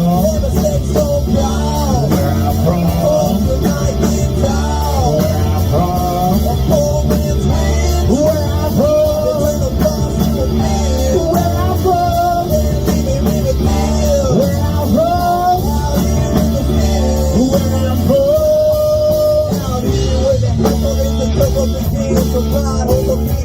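Rock music with a sung vocal, guitar and a steady beat.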